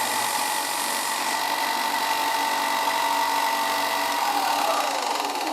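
Ryobi benchtop belt and disc sander running with a steady whine, then switched off about four seconds in, its pitch falling as the motor spins down.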